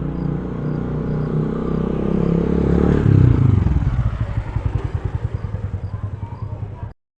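Motorcycle engine running steadily, loudest about three seconds in, then dropping in pitch into a pulsing, fading putter as it slows; the sound cuts off abruptly just before the end.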